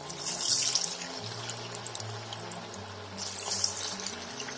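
Sabudana vadas deep-frying in hot oil with a steady sizzle. The sizzle flares louder about half a second in, as a raw vada is lowered into the oil, and again around three seconds.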